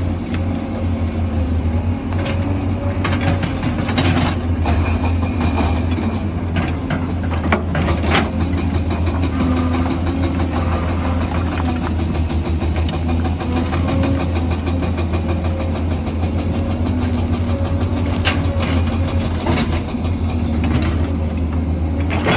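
Heavy construction machine's diesel engine running steadily with a deep hum, with several sharp clanks and knocks scattered through it.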